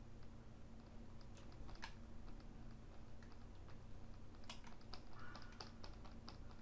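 Faint, scattered clicking of a computer keyboard and input device while sculpting in ZBrush, with a few quick clusters of clicks near the end, over a low steady hum.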